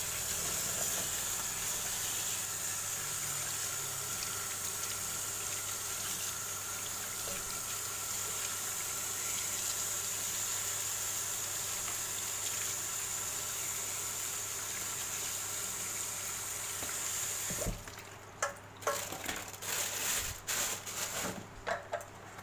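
Kitchen tap running steadily into a stainless steel sink while blue swimmer crab pieces are rinsed by hand under it. The water cuts off about eighteen seconds in, leaving light clicks and knocks of crab shells being handled in the sink.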